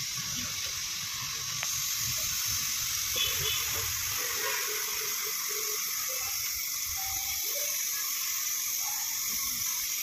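Brazing torch flame hissing steadily while a leaking discharge-line valve joint on a package air conditioner is brazed.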